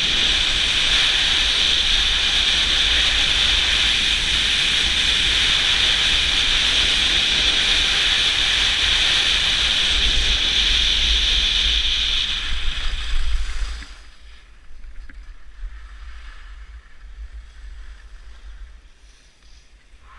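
Wind rushing over an action camera during a fast ski descent, with heavy buffeting rumble and a steady high whistle. About two-thirds of the way through it drops sharply to a much quieter hiss as the skier slows down.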